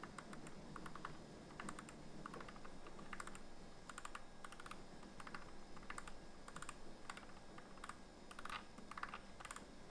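The knurled digital wheel of a Razer Ornata V2 keyboard being rolled back and forth, clicking through its steps in short runs of rapid ticks.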